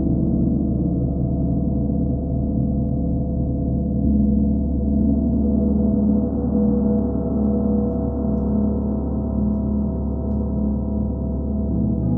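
Large hanging gongs sounding together in a continuous wash of many overlapping ringing tones, deep and steady, with gentle swells in loudness and no single sharp strike.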